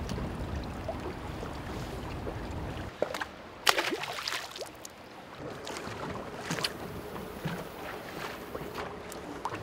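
Low steady wind rumble on the microphone, then a single loud splash about three and a half seconds in as a small fish is thrown back into the river, followed by quieter water and wind.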